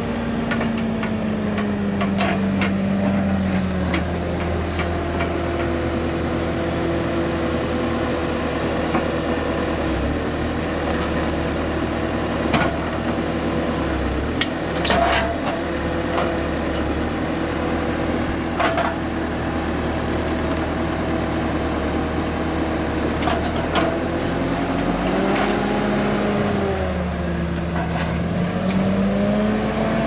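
An engine running steadily under load, its pitch falling a few seconds in and dipping and rising again near the end, with a few sharp knocks or rattles along the way.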